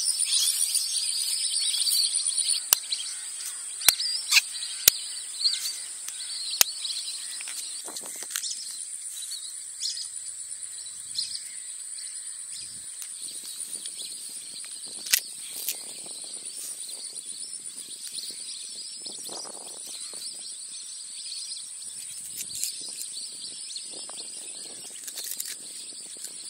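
Outdoor field ambience: a steady high-pitched insect drone with birds chirping. A few sharp clicks from palm fruits being cut and handled, several about three to seven seconds in and one about fifteen seconds in.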